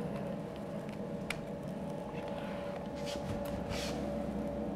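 Quiet room tone with a steady hum, one sharp click about a second in, and a brief rustle a little past the middle.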